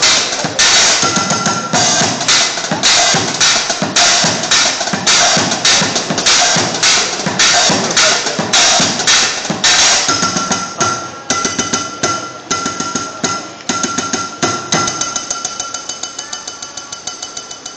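Improvised drum kit of upturned plastic buckets, kitchen pots and cymbals played with drumsticks: a fast, busy rhythm with cymbal crashes, then from about ten seconds in a lighter, quicker run of taps with a steady metallic ringing, growing quieter toward the end.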